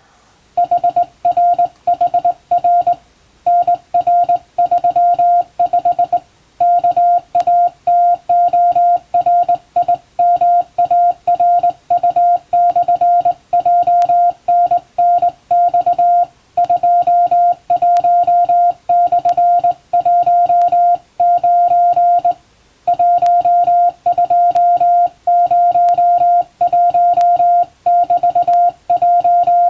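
Morse code sent by hand on a straight telegraph key, heard as a single steady tone keyed on and off in dots and dashes, with short pauses between letter groups.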